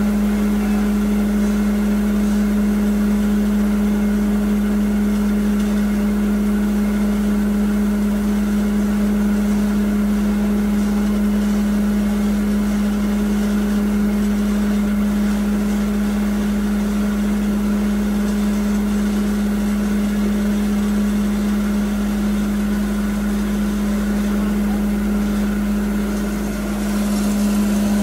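A 7.5 hp belt-driven rice husk grinding machine, powered by an electric motor, running steadily under load as rice husks are fed into it. It makes a loud, even hum over a steady grinding rush.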